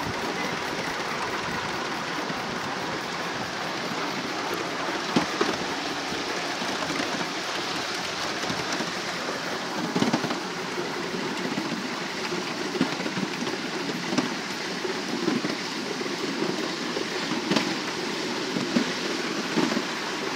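Miniature passenger railway cars running along raised track: a steady rumble of wheels on rail, with occasional clicks and knocks.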